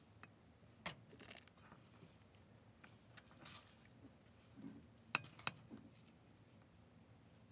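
Faint scattered clicks and taps of a silicone spatula and fingers against a stainless steel mixing bowl as crumbly black sesame filling is scooped and pressed, the sharpest clicks around three and five seconds in.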